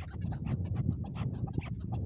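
Chukar partridge calling: a rapid run of short chuck notes, about seven or eight a second.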